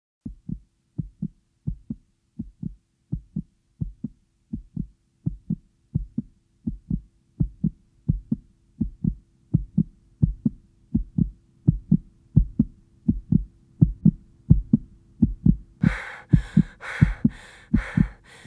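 Heartbeat sound effect: low double thumps, coming faster and getting louder. Near the end a rhythmic hissing noise joins in, pulsing a few times a second.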